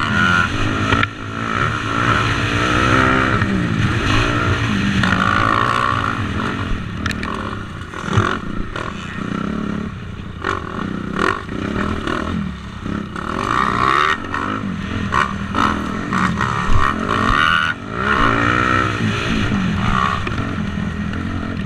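250cc motocross bike's engine revving hard and easing off over and over, its pitch climbing and dropping through the gears as it is ridden around the track, with occasional sharp knocks.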